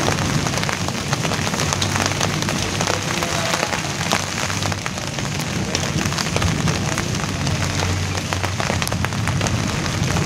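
Rain falling on broad leaves: a steady patter made of many individual drop taps.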